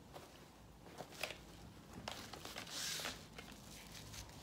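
Quiet handling sounds of hands rummaging in a cloth bag and picking up cosmetic packaging: a few light clicks and taps, then a brief rustle about three seconds in.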